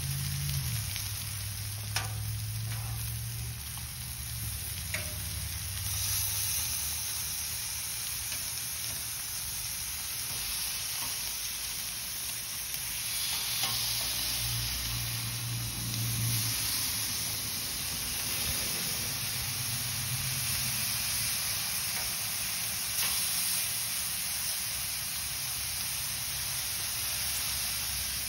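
Pork steaks sizzling steadily on a Blackstone griddle's hot flat steel top, with a few sharp clicks of metal tongs against the griddle as the meat is turned.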